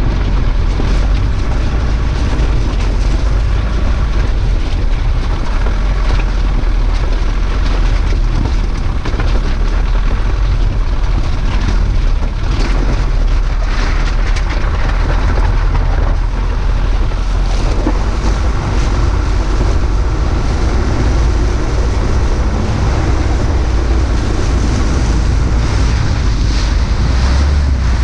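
A SsangYong Actyon Sport ute driving over river gravel and into shallow water: a loud, steady rumble of wind buffeting the microphone and tyres on stones, with scattered crackles of gravel and splashing water under the wheels from about halfway on.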